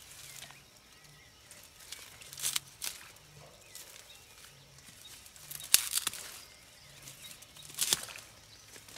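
Cattail and reed stems rustling and crackling in a few short bursts as a person moves and works among them at the water's edge, the loudest about two-thirds of the way in.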